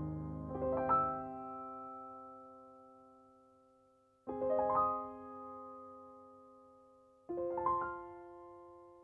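Background piano music: three soft rolled chords, each left to ring and die away before the next, about four and three seconds apart.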